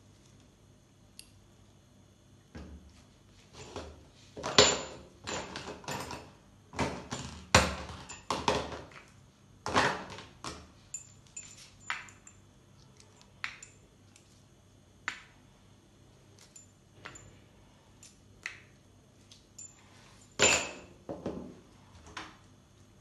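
Gloved hands handling a plastic jerrycan and small items on a hard tabletop: a run of knocks, clicks and scrapes, thickest from about four to ten seconds in, with another loud knock near the end.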